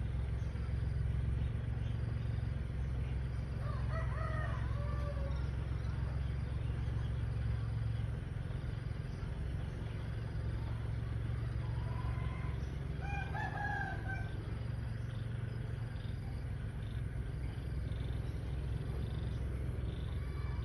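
Roosters crowing: one crow about four seconds in and another around twelve to fourteen seconds in, over a steady low rumble that eases off about eight seconds in.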